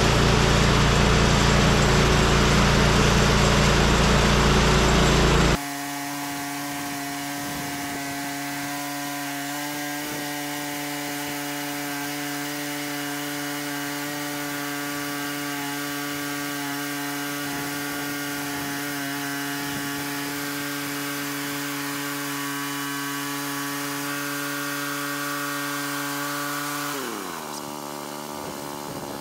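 Woodland Mills HM130Max portable band sawmill cutting through a log, its gas engine running under load. The first five seconds are a loud, rough cutting noise, which gives way abruptly to a steady engine hum. Near the end the engine's pitch falls as it winds down at the end of the cut.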